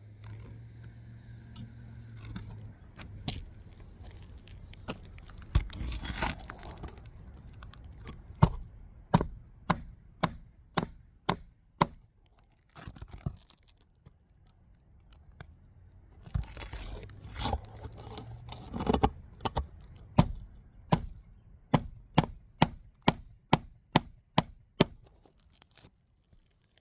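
A hammer driving roofing nails into asphalt shingles: runs of sharp strikes at about two a second, with scraping and rustling of the shingles in between.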